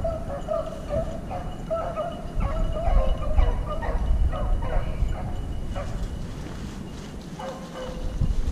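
Beagles baying in short, quickly repeated cries as they work a rabbit's scent through brush, with a low rumble underneath.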